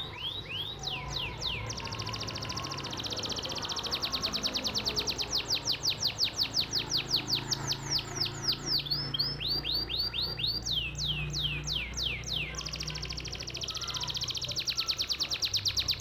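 A songbird singing long series of high, downward-sweeping whistles. It sings fast trills of about eight notes a second, which break about two seconds in and again near the end into slower, longer falling whistles.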